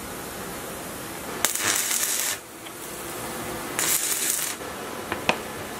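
Stick (arc) welding on a small diesel-engine part: two short bursts of crackling arc, each under a second, then two light clicks near the end.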